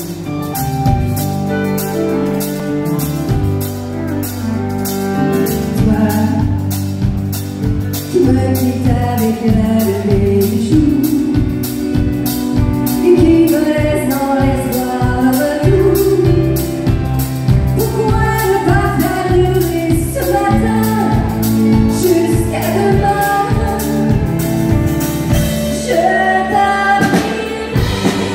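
Live country band playing with a woman singing lead into a microphone, over a steady drum beat.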